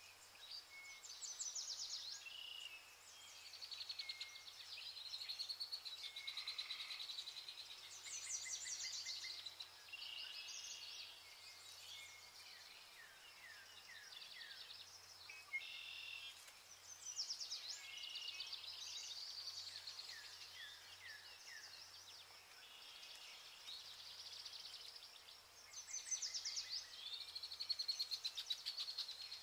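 Several small birds singing and chirping: quick trills, short chirps and down-slurred whistles, one phrase after another without a break.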